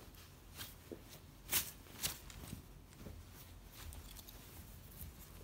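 Rustling and scuffing from a polyester football jersey being handled and spread out on a wooden floor: soft, irregular rustles with a few short scratchy bursts, the loudest about one and a half seconds in.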